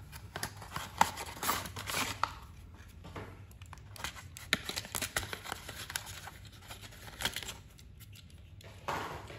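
Cardboard window box and clear plastic packaging being handled and opened, rustling and crinkling with irregular small clicks as a die-cast toy tank is slid out.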